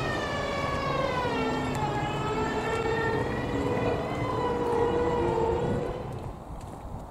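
A siren sounding: it winds up quickly, then slowly falls in pitch and dies away about six seconds in.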